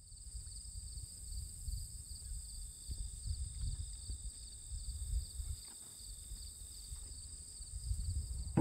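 Outdoor field ambience: an insect chorus trilling steadily at two high pitches, one of them pulsing, over an uneven low rumble.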